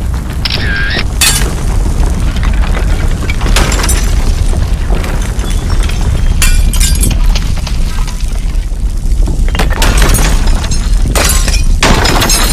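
Earthquake sound effect: a deep, steady rumble with several loud crashes of things breaking, spread through it.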